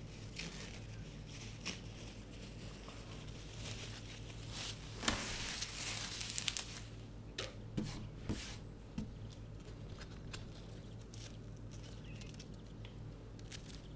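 Paper towel rustling and crinkling as it is pulled and peeled away from a potted plant cutting, with a denser run of sharp crackles about five to seven seconds in, over a steady low hum.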